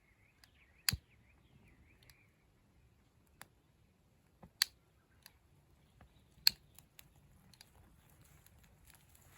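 A few sharp, irregular clicks or snaps against a quiet background, loudest about a second in and again around six and a half seconds.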